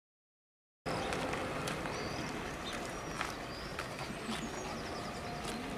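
Silent for about the first second, then outdoor ambience: small birds chirping and calling in short high notes over a steady low background noise.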